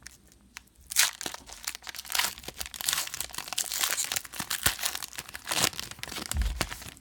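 A trading-card pack's plastic wrapper being torn open and crinkled by hand, a dense, irregular crackle with a short tear at the start. A dull low bump comes near the end.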